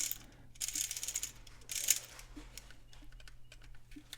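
Small plastic parts of an opened, flimsy flip clock being handled: two quick runs of clicking and rattling in the first two seconds, then a few light clicks.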